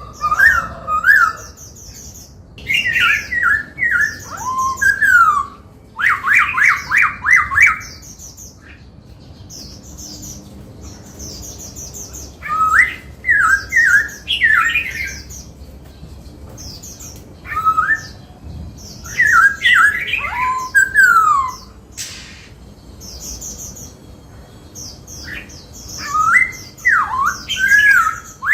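Black-throated laughingthrush singing: bouts of a few seconds of loud whistled notes that slide up and down, some fast trilled runs, and thin high chattering notes, with quiet pauses between bouts.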